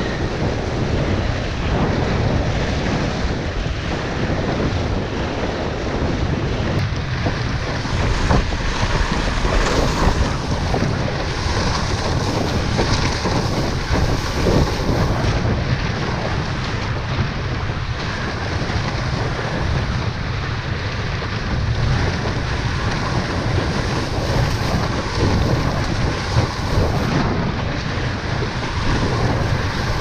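Strong wind buffeting the camera microphone over the continuous rush and splash of water against a windsurf board moving fast through choppy water, steady with small surges.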